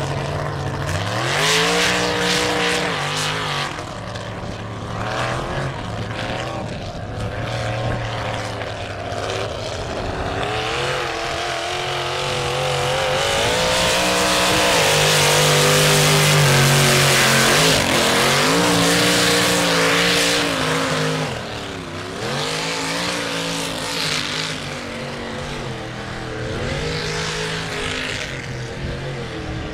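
Lifted mud-racing truck's engine revving up and down again and again as it drives the mud course on big tyres. It is loudest for several seconds in the middle, where the engine is held high with a rush of tyre and mud noise.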